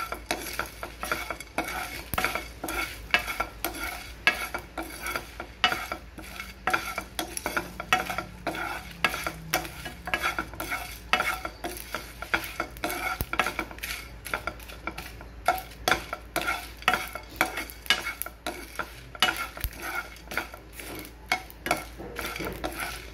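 Whole spices (cumin seeds, black peppercorns, dried red chillies, cardamom pods, bay leaf) being dry-roasted in a non-stick pan and stirred with a spoon: a constant irregular run of scraping and rattling clicks, several a second, as the seeds and spoon move over the pan.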